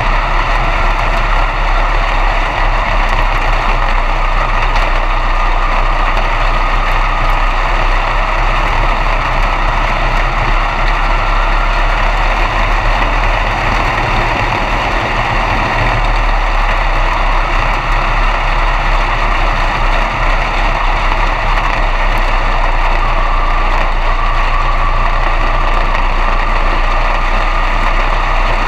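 B-Mod dirt track race car's V8 engine heard from inside the cockpit, running steadily with little change in pitch.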